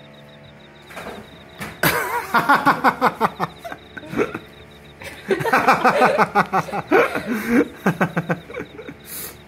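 People laughing in two bouts, about two seconds in and again about five seconds in, each a run of quick ha-ha pulses.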